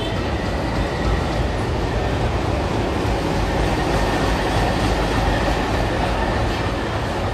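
WDP3A ALCo diesel locomotive pulling a passenger train slowly past into the platform, its engine rumbling, then the coaches rolling by, with a thin steady squeal throughout.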